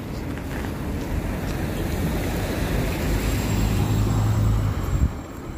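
Three-axle city bus driving past close by: engine and tyre noise grows louder with a deep engine drone, peaks about four to five seconds in, then falls away as the bus moves off.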